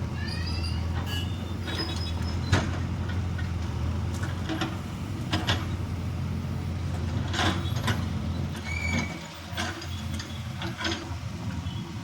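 Diesel engine of a JCB 3DX backhoe loader running steadily under work, with scattered sharp knocks from digging and loading about every second or two. The engine dips briefly about nine seconds in.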